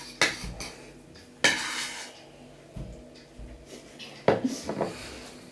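Dishes and cutlery clinking and clattering in a few sharp knocks, one about a second and a half in and a quick cluster a little after four seconds in.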